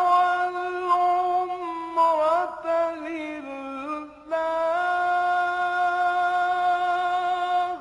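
A male Quran reciter chanting in a drawn-out melodic style, holding long notes with small ornaments. After a short breath about four seconds in, he holds one long steady note that cuts off near the end.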